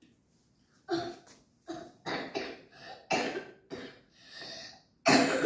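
A boy coughing repeatedly, about six short coughs, the loudest one near the end.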